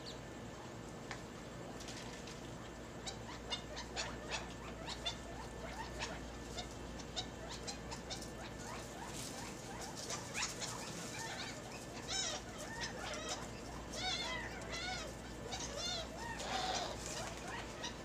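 Lovebirds chirping and chattering: scattered short chirps and clicks at first, becoming busier about halfway through with quick, wavering calls.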